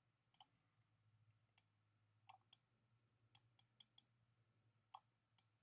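Computer mouse clicking: about ten faint, sharp clicks at irregular intervals as line segments are placed, over a faint steady low hum.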